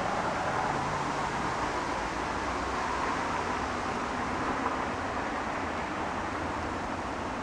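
Wind blowing steadily mixed with road traffic noise: an even rushing sound that swells slightly around the middle and eases again.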